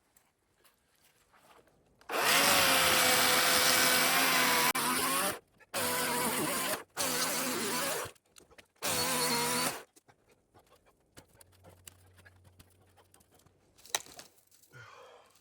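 Husqvarna 350i battery chainsaw cutting back a tree. The electric motor whines in one run of about two and a half seconds, then four short trigger bursts. A single sharp click comes near the end.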